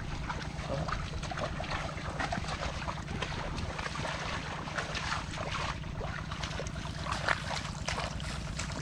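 Wind buffeting the microphone, over irregular splashing and squelching of hands groping in shallow muddy water.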